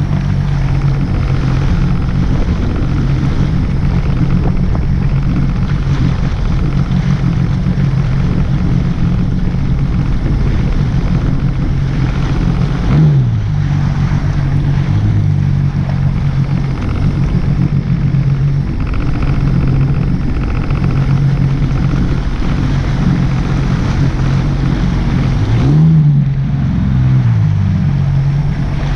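An engine running steadily under low rumble, its pitch briefly rising and falling about halfway through and again near the end.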